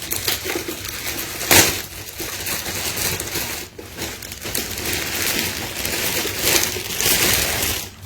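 Packaging crinkling and rustling continuously as the robot vacuum is unwrapped, with one sharp, loud crackle about one and a half seconds in.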